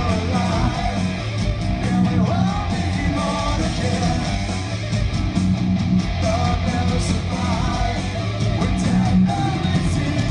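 Heavy metal band playing live: electric guitars, bass and drums, with a lead vocal singing over them.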